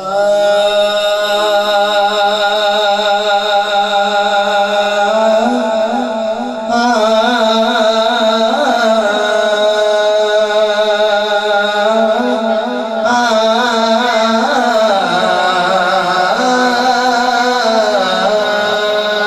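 Devotional music introduction: a held drone with a wavering melody line over it, shifting about 7 and 13 seconds in.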